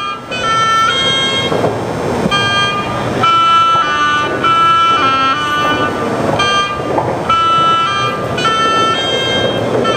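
A simple tune played in held, high, horn-like notes that step from one pitch to the next about once or twice a second, over steady background noise.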